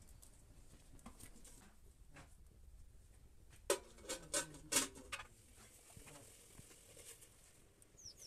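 Metal lid set on a metal cooking pot: a quick run of five or six ringing clinks and clatters, lasting about a second and a half, about halfway through. Faint light ticking from the wood fire around it.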